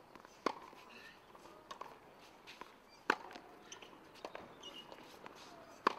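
Tennis ball struck by rackets in a rally: three sharp racket-on-ball pops roughly two and a half seconds apart, with fainter knocks in between.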